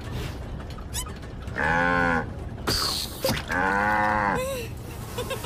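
A cartoon cow mooing twice, each moo a long held call of nearly a second, with a short burst of noise between them.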